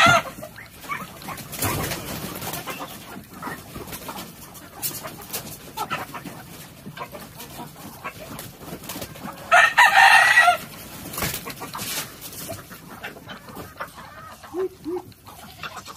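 A game rooster crows once, about a second long, near the middle. Softer clucking and a few light knocks come in between.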